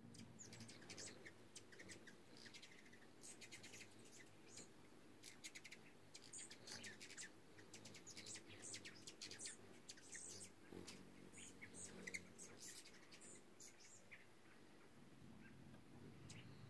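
Several hummingbirds chipping and twittering in rapid, high, short notes as they squabble around a feeder, the chips thinning out near the end.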